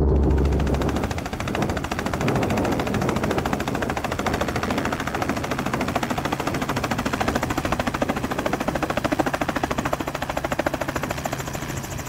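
Helicopter rotor blades chopping the air in a rapid, steady beat.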